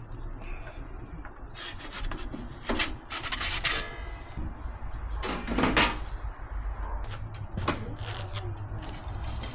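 Steady high-pitched insect chorus, with several short scrapes and knocks from items being handled on a table, the loudest just over halfway through.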